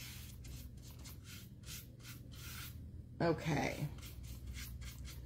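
Small crafting brush scrubbing paint onto a picture frame's moulding in quick short strokes, about four a second, a dry scratchy rubbing of the bristles.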